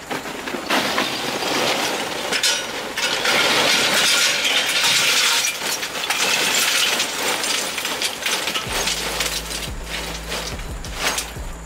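Charcoal poured into a metal chimney starter, the pieces clinking and rattling against the metal and each other, heaviest in the middle of the pour. A steady low hum starts near the end.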